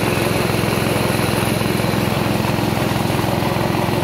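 Rice milling machine running steadily, driven by its small single-cylinder 6.5 hp engine, with an even fast-pulsing engine note and no change in speed while it hulls and polishes paddy into rice.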